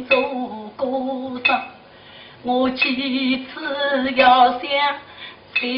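A woman singing Shanghai opera (Huju) in the fuzi ban style, a sung recitation delivered in short phrases. Sharp percussion clicks fall at the starts of phrases.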